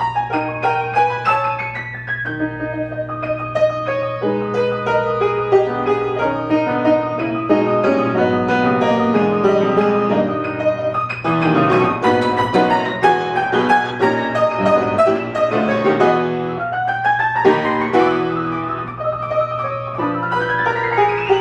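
Solo piano playing a fast, busy passage, with quick rising runs up the keyboard near the end, over a steady low hum.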